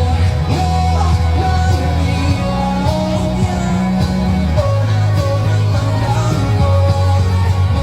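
Rock music with a singer over long held bass notes.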